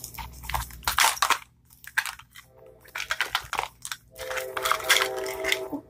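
Plastic wrapper of a Mini Brands toy capsule crinkling and crackling in bursts as it is peeled off the plastic ball by hand.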